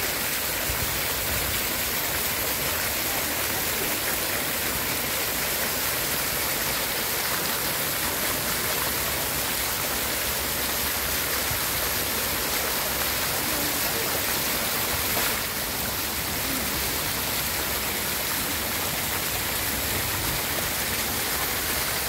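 Many water jets of a dancing fountain falling back into their pool: a steady, unbroken rush of splashing water.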